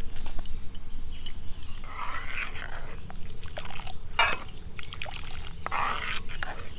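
A steel ladle stirring ground coconut into milk in an aluminium pot, with several short bursts of scraping and sloshing over a steady low rumble.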